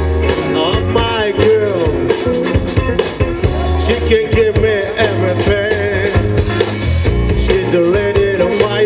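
Rock band playing live: drum kit, bass and electric guitar, with a melody line that bends and wavers in pitch over a steady beat.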